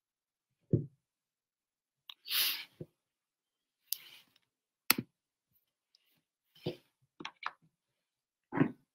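Scattered handling noise close to the microphone: about seven short sharp clicks and soft knocks, irregularly spaced, with a brief hiss about two seconds in.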